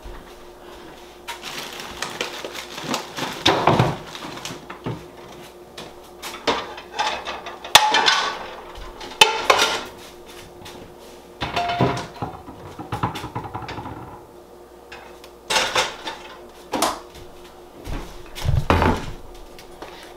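Kitchen clatter of pots, pans and dishes being handled and set down on a counter: irregular knocks, clinks and scrapes.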